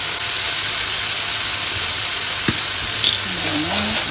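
Vegetables frying in olive oil in a pan, a steady sizzle, with a single sharp click about two and a half seconds in.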